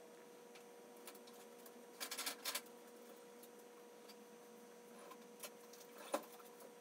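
Faint clicks and small taps of a brush and hands working a clear coat onto a wooden crankbait held in a rack: a quick cluster of clicks about two seconds in and single clicks near the end, over a steady faint hum.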